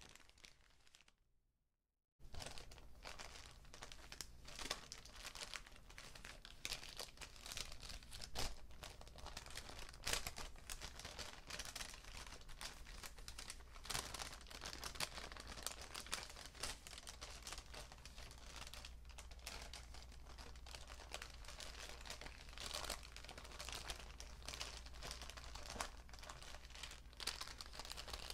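Paper bag being crinkled and crumpled: a dense, continuous crackle full of sharp snaps. It starts after a moment of silence about two seconds in.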